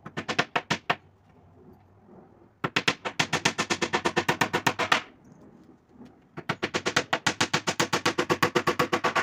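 A hammer driving nails into a wooden tabletop: three runs of rapid, even strikes, about ten a second, with short pauses between.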